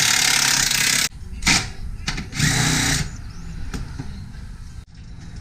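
Power tool run in bursts: a loud one of about a second at the start, then shorter ones about one and a half and two and a half seconds in, undoing the engine's rear torque mount.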